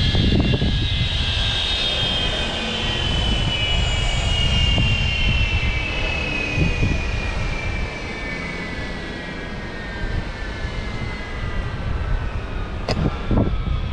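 Jet engine whine falling slowly and steadily in pitch over a heavy low rumble, with two sharp knocks near the end.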